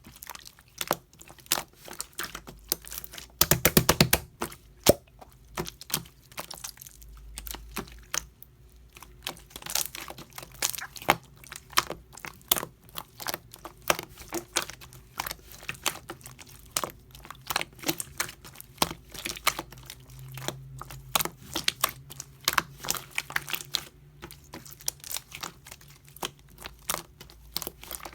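Slime being squeezed and poked by hand, giving irregular crackling clicks and pops, with a dense run of crackles about three and a half seconds in.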